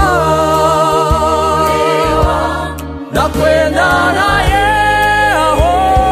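A mixed choir singing a Swahili gospel song in parts, holding long notes, with a short break between phrases about three seconds in.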